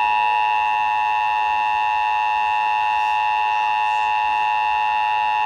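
Emergency Alert System attention signal: a steady two-tone alert of about 853 and 960 Hz sounding together, held at a constant pitch and level, the tone that precedes the national test announcement.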